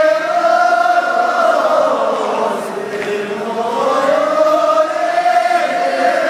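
A line of Sherpa men singing a shepru dance song together, the Sherpa circle dance song, as a chant. Long held notes rise and fall in two phrases, the second starting about three seconds in.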